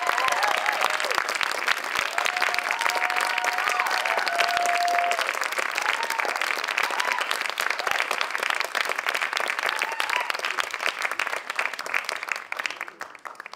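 Audience applauding with dense clapping, a few voices calling out over it; the applause fades out near the end.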